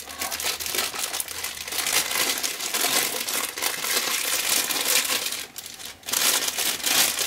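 Clear plastic bag crinkling as hands handle and open it, with a brief lull about six seconds in.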